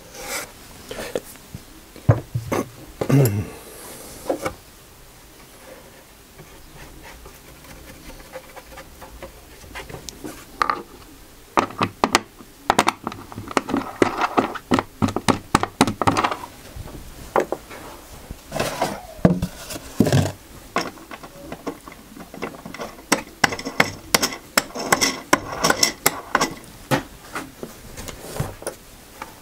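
Handling noise at a workbench: wooden pieces and tools being picked up, set down and knocked together, giving irregular clicks, knocks and scrapes in clusters.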